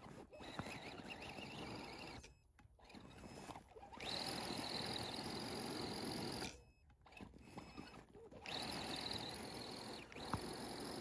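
RC crawler's electric motor and geared drivetrain whining as it drives, dropping out for a moment several times and picking up again.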